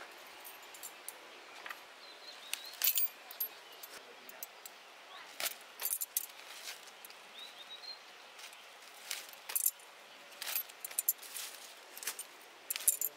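Irregular sharp clicks and light clinks of metal tongs snipping and gripping stinging nettle tips, with leaves rustling as the sprigs are pulled off and dropped into a plastic bucket.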